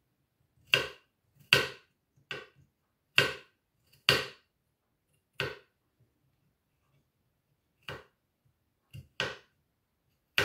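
Kitchen knife slicing garlic cloves on a wooden cutting board: about ten separate, unevenly spaced knocks of the blade striking the board.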